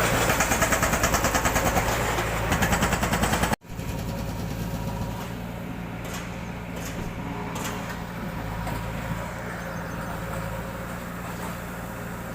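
An engine running at idle, with a fast, loud throb for the first few seconds. After a sudden break it becomes a quieter, steady hum with a few faint clicks.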